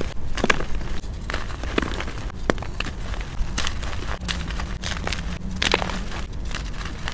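Hands squeezing and crumbling gritty gym chalk and soft reformed chalk in loose powder: irregular crunchy crackles and soft powdery crumbles, with a few sharper snaps.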